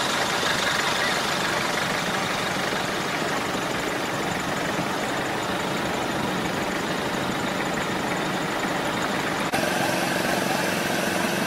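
Steady noise of idling vehicle engines and road traffic. About nine and a half seconds in, the sound changes abruptly to a steadier engine hum.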